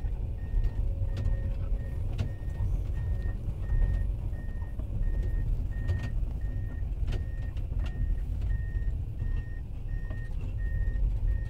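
Komatsu PC210 excavator's diesel engine and hydraulics working under load, heard from inside the cab, with scattered knocks and clicks as the bucket's corner tooth rips through frozen ground. A high beep repeats about every three-quarters of a second.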